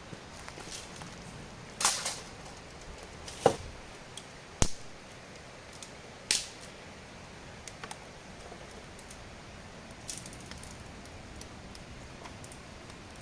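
A handful of sharp, short knocks and clacks at irregular intervals, about five in all, the loudest a little over three seconds in, over a steady low background hiss.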